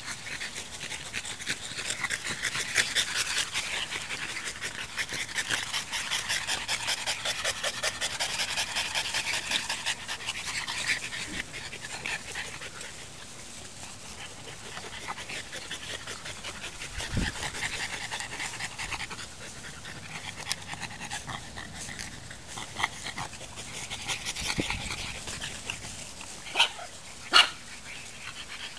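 French bulldogs panting fast and rhythmically, loudest in the first ten seconds and then fainter. Two short sharp sounds come near the end.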